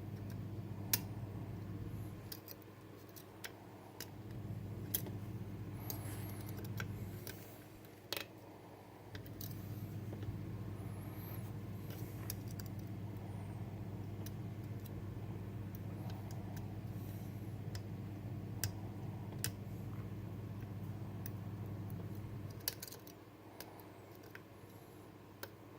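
Scattered small metal clicks and light scrapes of lock picks working the sliders of a Bellock cam lock, over a steady low hum that drops out for a few seconds three times.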